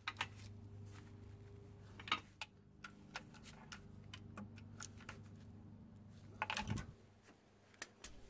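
Socket ratchet clicking in short, spaced strokes as a starter mounting bolt is tightened and torqued, with a louder metallic clatter and knock about six and a half seconds in. A low steady hum runs underneath.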